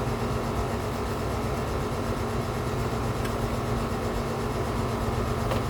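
Steady background hum and hiss, with a faint click or two.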